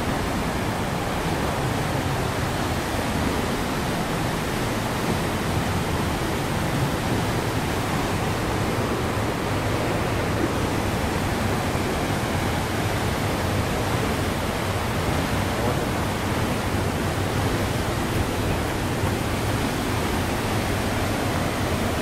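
Waterfall rushing: a steady, unbroken wash of falling water.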